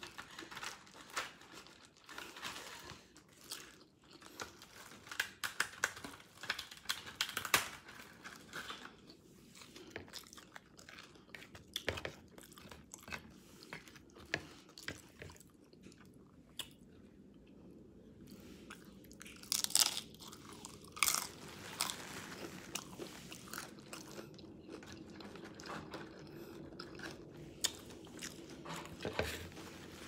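Close-miked chewing of crunchy tacos, with crisp crunches and bites scattered throughout.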